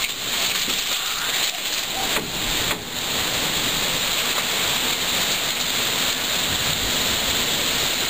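Squall-line thunderstorm wind and rain: a loud, steady rushing noise.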